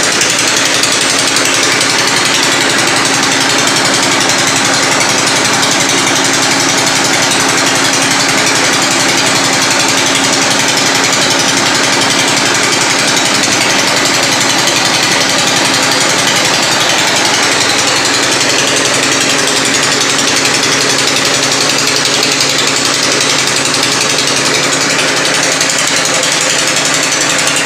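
Rock-boring machine drilling horizontally into hard rock, a rapid, unbroken hammering with a steady hum beneath it.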